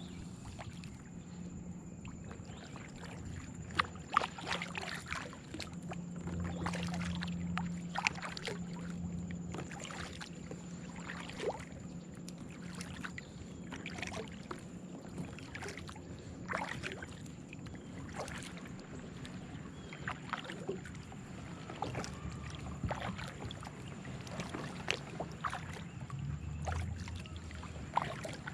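Kayak being paddled: paddle strokes splashing and dripping water, with irregular sharp clicks and knocks.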